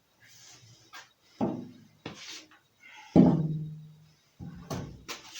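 Hollow metal clunks and knocks from a removed steel car door being handled. The loudest, about three seconds in, rings on for about a second, and a few lighter knocks follow near the end.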